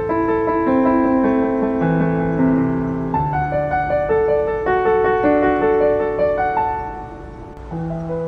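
Background piano music: a melody of held notes. It turns briefly quieter near the end.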